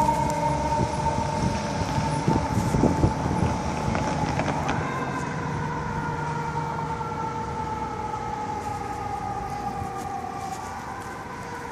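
Fire truck siren wailing. Its pitch falls slowly for about five seconds, jumps back up, and falls again, rising once more near the end. A few sharp knocks sound around two to four seconds in.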